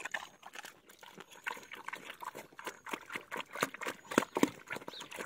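A pig eating noisily from a feed bowl: fast, irregular chomping and smacking of its mouth.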